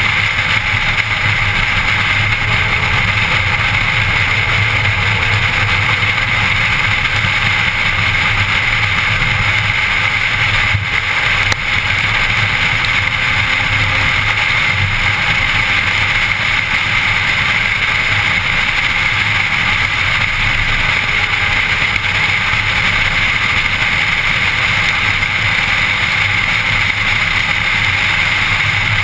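Steady engine drone and tyre and road noise inside a car's cabin as it cruises at an even pace.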